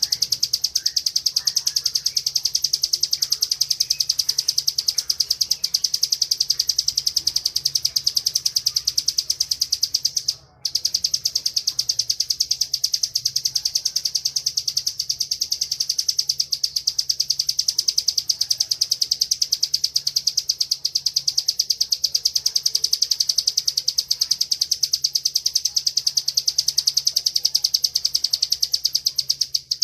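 Bar-winged prinia (ciblek) singing its fast, unbroken high-pitched 'ngebren' trill, with a brief break about ten seconds in.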